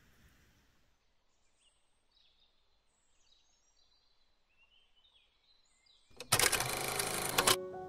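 Faint high chirping, then about six seconds in a loud burst lasting over a second, after which piano music begins near the end.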